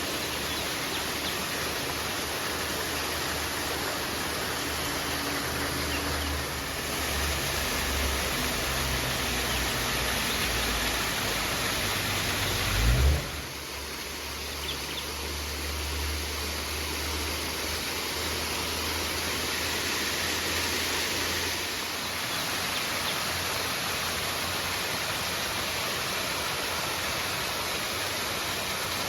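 River water rushing steadily, with a low rumble underneath and a short, loud low bump about halfway through.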